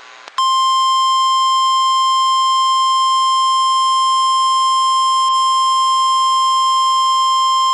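NOAA Weather Radio 1050 Hz warning alarm tone: a loud, steady, unbroken beep that starts just under half a second in and holds at one pitch. It signals that a warning message, here a snow squall warning, is about to be broadcast.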